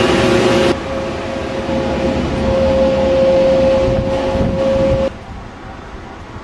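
A loud, steady machine hum: one held tone over a noisy rumble, changing slightly about a second in and dropping away about five seconds in to a much quieter background.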